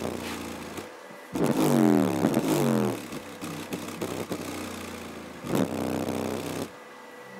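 Skar Audio ZVX-12 12-inch subwoofer playing a bass test track hard, its cone moving at large excursion. A deep steady bass drone runs underneath, with louder gliding bass notes from about one to three seconds in and again around six seconds.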